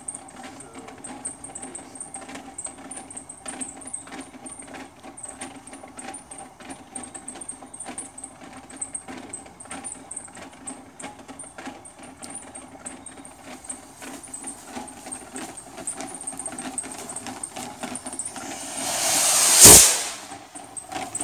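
Homemade sugar rocket motor igniting: a hiss that swells quickly into a loud whoosh near the end and dies away within about two seconds. Before it there are faint irregular clicks over a steady high trill.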